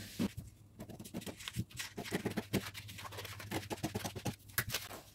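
Scissors cutting through a brown paper sewing pattern along a curved line: a quick, uneven run of short, crisp snips.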